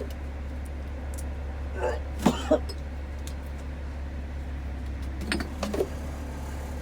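A vehicle engine idling with a steady low hum. Brief short sounds come about two seconds in and again near the end.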